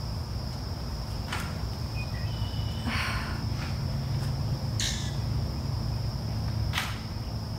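Steady high-pitched insect trill, crickets, over a low steady hum, with three short taps and a brief hiss as someone moves on an exercise mat.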